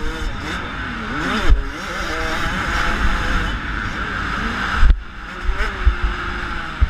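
Motocross dirt bike engine revving hard, its pitch climbing and falling as the rider works the throttle around the track, with wind buffeting the onboard camera's microphone. Just before five seconds in the throttle shuts off sharply, followed by several low thumps.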